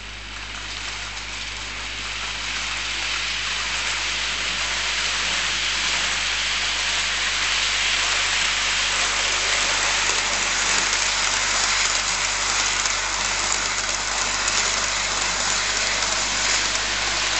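OO gauge model train, a model class 66 hauling empty container flat wagons, running through on the layout's track: a steady rattling hiss of wheels on rail and motor that builds over the first several seconds, then holds.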